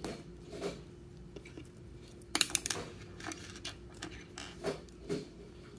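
Small plastic 3D-puzzle pieces clicking and clattering as they are handled, fitted together and picked from a pile on a wooden table, with a quick run of sharp clicks a little past the middle.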